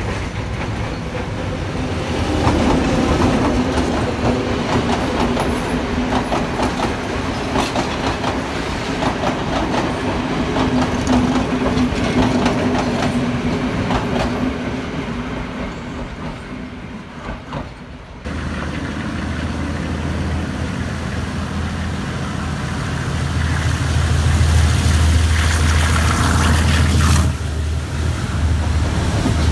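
Diesel-hauled passenger train running past with its wheels clattering over the rail joints and a steady drone. About eighteen seconds in, the sound cuts to the low, steady rumble of riding aboard a moving train.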